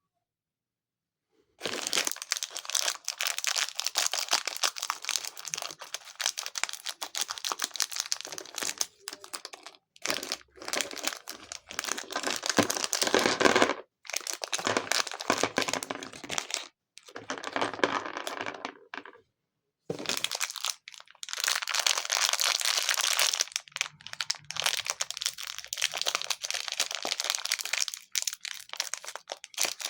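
Crinkling of packaging being handled and opened, in stretches of a few seconds with short pauses between.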